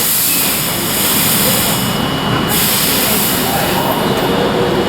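Train running at the platform: a steady loud rushing noise, with a bright hiss on top that cuts off suddenly about two and a half seconds in.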